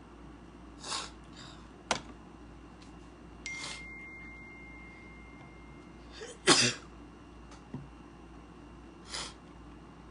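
A woman sneezing several times, about four short sneezes a few seconds apart, the loudest about six and a half seconds in. She puts them down to allergies.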